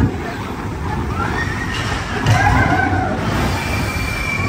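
Expedition Everest roller coaster train rolling on its steel track with a loud, steady rumble. Its wheels squeal through a curve about a second and a half in, and a steady high whine joins near the end as the train starts to climb.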